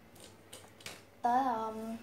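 A voice speaking one drawn-out Vietnamese word ("tới"), preceded by a few faint light clicks.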